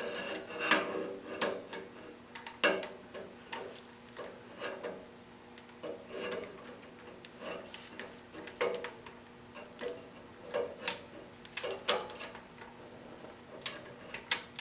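Irregular clicks and scraping from a 3/8-inch ratcheting torque wrench worked in short strokes on a small Allen bolt of an engine-block oil adaptor.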